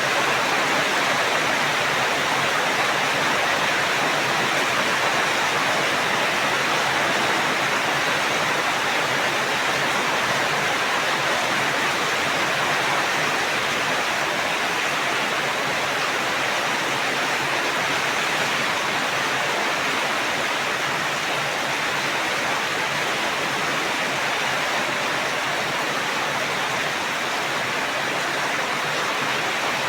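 Steady heavy rain, a dense even hiss without distinct drops.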